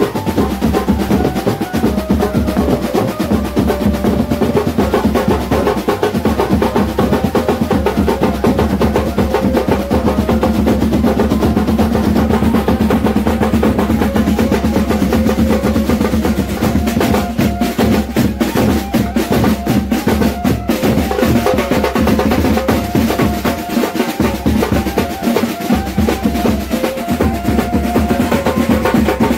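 Street drum band playing loudly: rapid snare drum rolls and bass drum strokes without a break, with a held melody line sounding over the drums.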